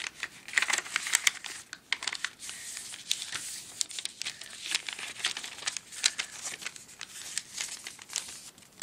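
A sheet of paper being folded and creased by hand into a paper airplane: irregular crinkling and rustling with quick, sharp crackles as the folds are pressed down.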